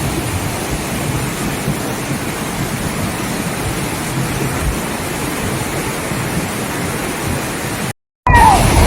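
Steady, even rush of water for about eight seconds, cut off abruptly by a brief silence; a louder rushing passage with a short wavering tone follows near the end.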